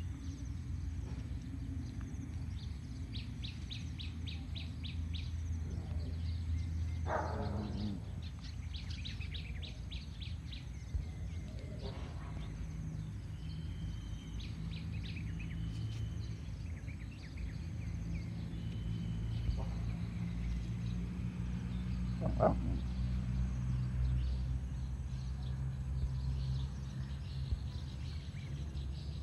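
Outdoor ambience: birds chirping, with quick high trills early on and short clear chirps in the middle, over a steady low rumble. A few brief rustling sweeps come about 7, 12 and 22 seconds in.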